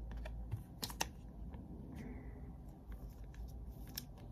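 Trading cards being handled in the hands, slid and flicked against one another, giving a few faint sharp clicks, the loudest about a second in.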